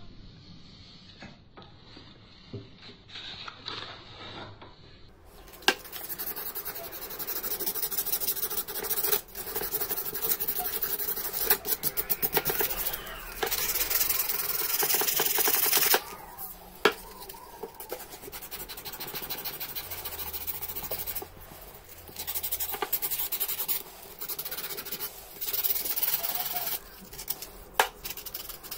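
Sandpaper rubbed rapidly back and forth by hand along an old hammer's wooden handle, a dense scratchy rasping. It starts about five seconds in and comes in spells of a few seconds with short pauses.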